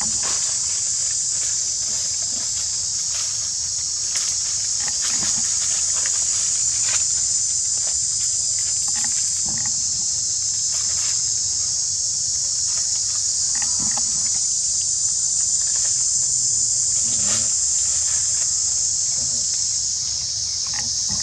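Steady, high-pitched drone of insects in woodland, with faint scattered clicks and rustles.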